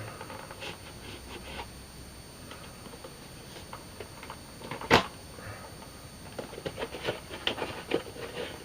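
Cardboard box and plastic clamshell packaging being cut and pried open with a knife: scattered clicks and crinkles, a sharp snap about five seconds in, and busier crackling of plastic near the end.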